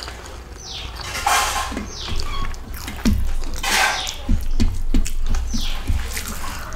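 Eating with the hand from a steel plate: fingers squishing rice into fish curry, wet chewing and mouth smacking, with soft knocks against the plate. Two loud noisy slurps come about a second in and again near four seconds in.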